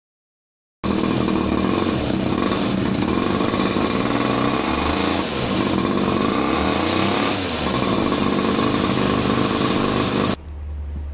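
Homemade go-kart's small air-cooled engine running, its speed rising and falling a few times. It cuts in abruptly about a second in and cuts off suddenly near the end.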